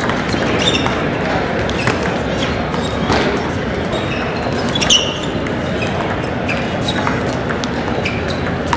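Table tennis balls clicking off bats and tables in rallies, over the steady hubbub of a large hall with many tables in play and voices in the background.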